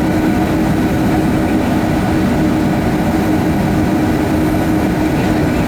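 Steady cabin noise of a Boeing 757-200 with its jet engines running, heard from inside the cabin: a low rumble with a steady hum over it.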